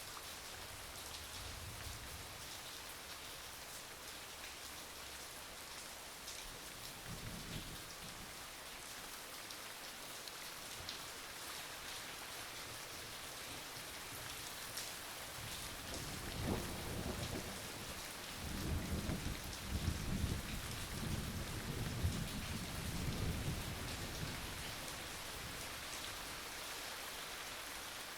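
Steady rain falling, with thunder rumbling low a couple of times early on and then a longer, louder roll of thunder in the second half.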